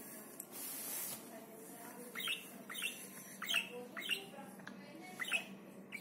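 Agitated budgerigar giving a run of six or seven short, harsh squawks from about two seconds in, each a quick falling note. A brief rush of noise comes about half a second in.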